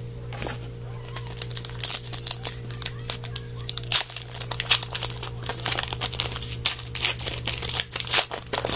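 Crinkling and rustling of a trading-card pack wrapper and cards being handled by hand: a quick, uneven string of small crackles and clicks, over a steady low hum.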